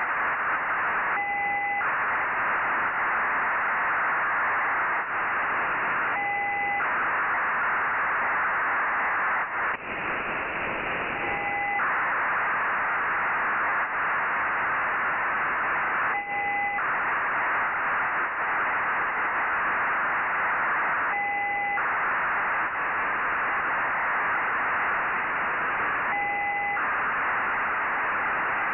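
Demodulated 1200-baud BPSK telemetry downlink from the Nayif-1 (EO-88) amateur satellite on a radio receiver: a steady rushing, hiss-like data sound. About every five seconds it changes briefly for about half a second, as each telemetry frame begins.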